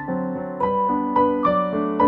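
Background music: a gentle piano melody, with notes struck every fraction of a second.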